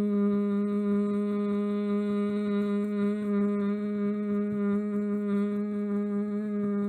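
A woman humming one long note at a steady pitch, her fingertips tapping rapidly on her chest, the taps coming as quick soft knocks under the hum.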